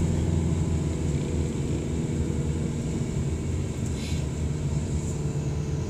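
Car driving along a winding road, heard from inside the cabin: a steady low drone of engine and tyre noise.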